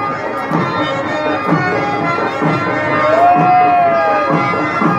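Pipe music: a steady drone under a melody whose loud held note swells and slides down about three seconds in, over a regular drum beat about twice a second.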